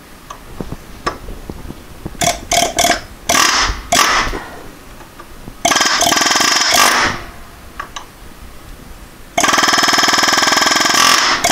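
Air chisel hammering a chisel bit against a seized, rounded-out Allen bolt in the water pump pulley, to shock it loose and turn it. It goes in four loud bursts of rapid hammering: two short ones, a longer one about six seconds in, and the longest starting about nine seconds in.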